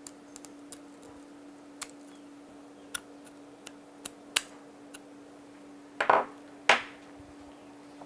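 Small scissors snipping stray copper braid strands of a coaxial cable: a scattering of short, sharp clicks over the first five seconds. Two louder knocks follow about six seconds in, over a faint steady hum.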